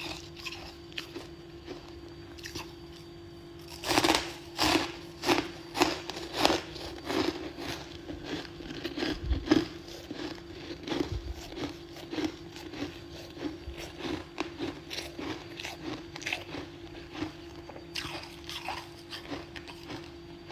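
A person biting into and chewing mouthfuls of freezer frost close to the microphone: loud crisp crunches about four seconds in, coming one or two a second, then settling into quieter steady chewing crunches. A steady low hum runs underneath.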